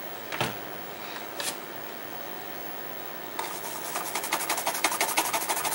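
Toothbrush scrubbing flux residue off the solder side of a circuit board in fast, short back-and-forth strokes, starting about three and a half seconds in. Before that, a couple of light knocks from the board being handled.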